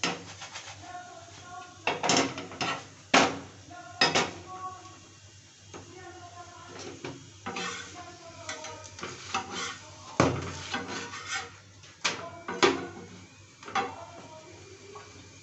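Flat steel spatula knocking and scraping against a cast-iron tawa as a paratha is flipped and pressed, giving a series of sharp metallic clinks at irregular intervals.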